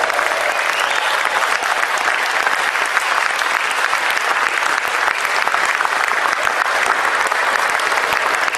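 Spectators applauding: steady, dense clapping.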